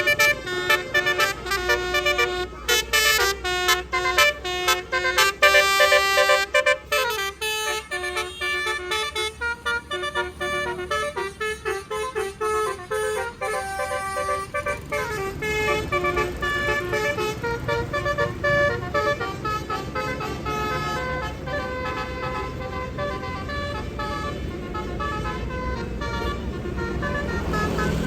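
Basuri 'telolet' musical bus horn playing a fast tune of stepped, multi-tone notes, with a bus engine rumbling underneath that grows louder in the second half.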